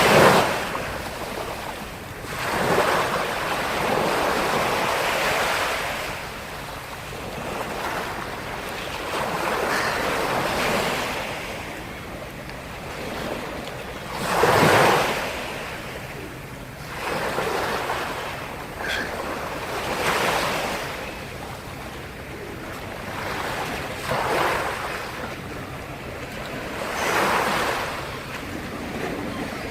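Black Sea waves breaking and washing up the shore, surging in every few seconds. The biggest breaks come at the very start and about halfway through.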